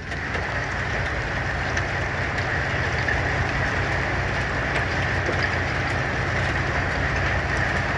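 Hail and rain drumming on the roof of a truck cab, heard from inside as a dense, even clatter of many small hits over a steady low rumble.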